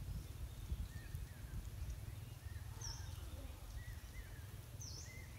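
Faint chirping of small birds, a scatter of short calls, over a low, uneven rumble.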